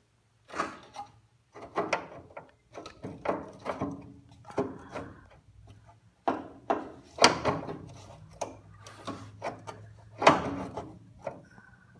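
Metal burner of a Char-Broil propane grill being pulled and wiggled off the gas valve's male end, rattling and scraping against the grill's sheet-metal body in a series of irregular clunks and scrapes.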